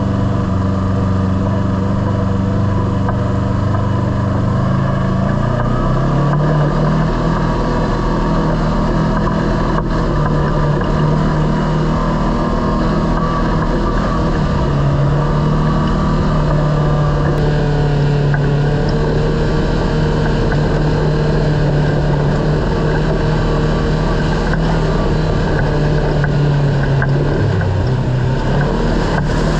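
Kawasaki KRX side-by-side's parallel-twin engine running steadily while driving on a trail. Its engine note changes about six seconds in, then holds fairly even.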